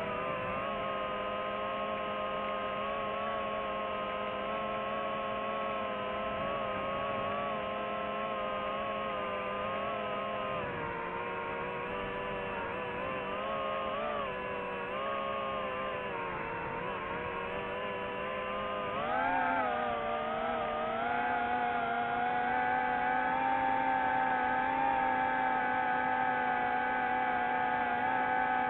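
DJI FPV drone's motors and propellers whining steadily. The pitch wavers and sags for a few seconds midway, then climbs sharply about two-thirds of the way in and holds higher and a little louder as the throttle goes up.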